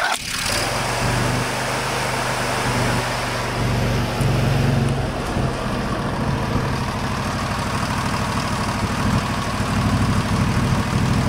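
John Deere L120 riding mower engine starting at once and then running steadily. It sounds smooth, which the owner puts down to a new fuel pump.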